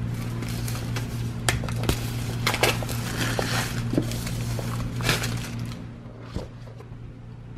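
Clear plastic shrink wrap crackling and tearing as it is pulled off a cardboard product box, in bursts with sharp clicks, and the box being handled. A steady low hum runs underneath.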